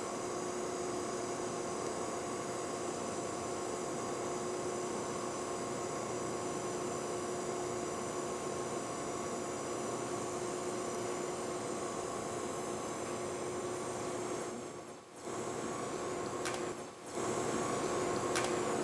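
DC TIG welding arc at 200 amps running a fill pass in a steel pipe groove: a steady hiss with a faint hum under it. It drops out briefly twice near the end.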